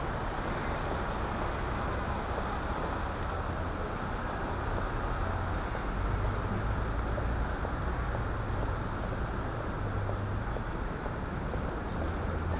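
Steady city street traffic noise: a constant rumble of passing cars and buses with no single event standing out.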